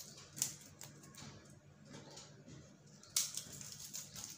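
Crisp papdi wafers being crushed by hand, falling into the dry bhel mix: scattered light crackles and snaps, with denser crunching in the last second.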